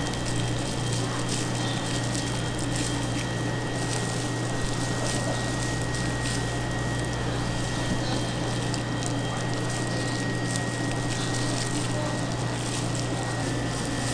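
Steady low machine hum with an even rushing noise and a faint high whine above it.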